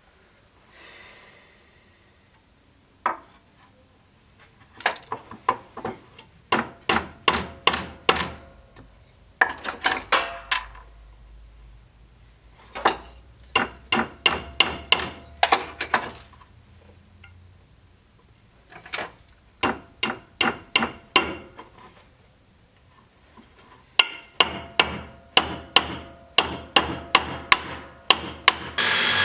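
Small hammer tapping in runs of several quick strikes, about two to three a second, with pauses between runs; many strikes leave a short ring.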